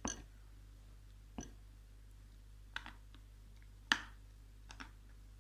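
Mouth sounds of someone eating mud close to the microphone: a handful of separate sharp clicks and smacks over a quiet background, the loudest about four seconds in.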